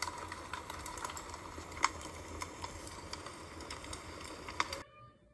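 Fire crackling: a steady hiss with irregular sharp pops and snaps, cutting off abruptly near the end.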